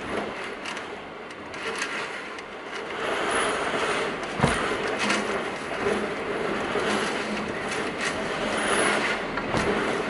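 Typhoon wind and driving rain: a continuous rushing noise that swells in gusts from about three seconds in, with one sharp knock about halfway through.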